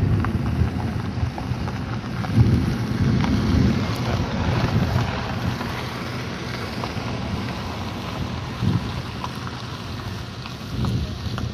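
Wind buffeting the camera microphone: a low rumbling noise that swells in gusts several times.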